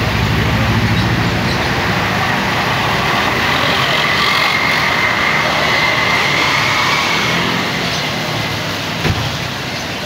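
Bus diesel engine running as the bus pulls away, its pulsing rumble strong for the first couple of seconds and then fading. After that comes a steady hiss of tyres and traffic on a wet road, with a short thump near the end.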